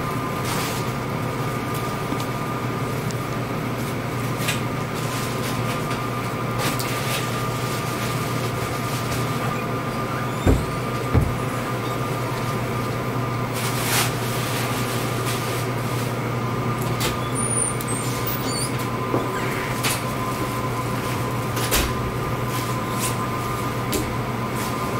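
Steady hum of a cleanroom's air-handling fans with a faint high whine over it, scattered light clicks, and two low thumps about ten and eleven seconds in.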